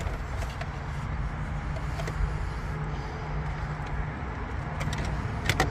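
Steady low rumble with a few faint ticks, then a quick cluster of sharp plastic clicks near the end as the old factory head unit is worked loose from the dash.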